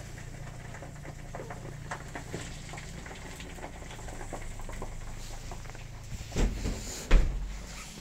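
Gas burner running steadily under a tank of molten paraffin wax, with scattered small crackles from the hot wax bubbling around the dipped wooden hive box. Two dull bumps come near the end, the second the loudest.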